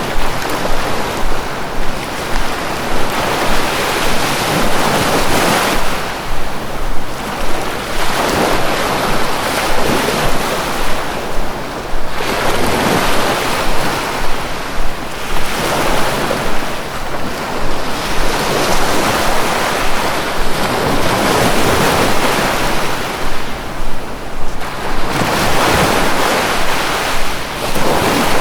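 Sea waves breaking and washing on a shore, swelling and falling back in surges every few seconds, with a steady rush of wind.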